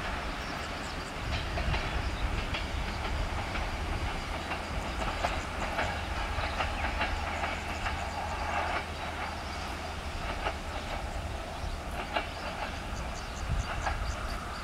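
Passenger train hauled by a CFR class 82 diesel-hydraulic locomotive running past at a distance. Its wheels click irregularly over the rail joints above a low, steady rumble.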